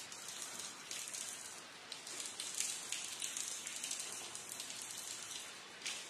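Rain falling steadily, a dense hiss of many drops pattering on a surface.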